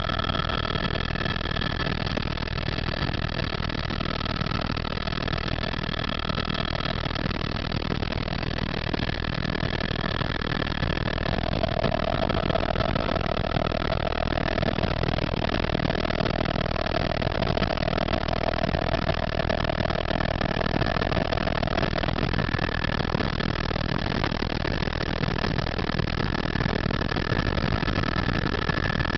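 AS350 AStar helicopter in cruise flight, heard from inside the cabin: the turbine engine's steady high whine over the low rumble of the rotor. One whine tone comes up more strongly about a third of the way in and fades back about two-thirds through.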